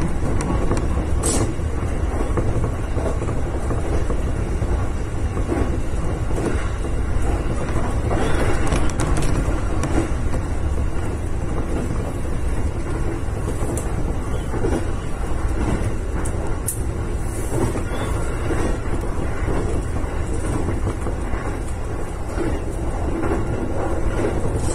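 JR East electric commuter train running at steady speed, heard from inside the driver's cab: a continuous rumble of wheels on rail with running-gear noise, and a few faint clicks.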